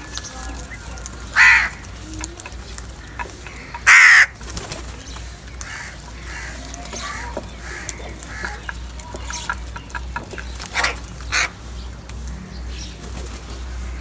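A flock of house crows cawing: loud harsh caws about a second in and at about four seconds, then two more close together near eleven seconds, among softer calls and light clicks.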